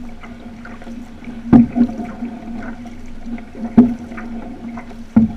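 Outrigger canoe under paddle: water rushing along the hull, with a loud knock about every two seconds and a steady low hum underneath.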